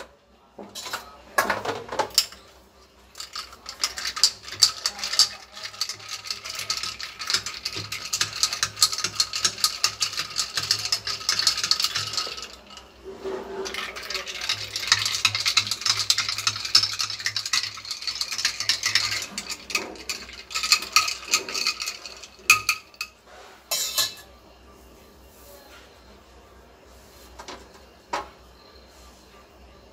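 A metal spoon stirring iced mint lemonade in a tall drinking glass, with rapid clinking against the glass and ice cubes in two long bouts. A few separate knocks follow, and then the clinking stops.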